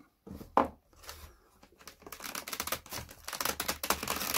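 Packaging crinkling and rustling as it is handled. There is a sharp click about half a second in, then a dense run of crackles through the second half.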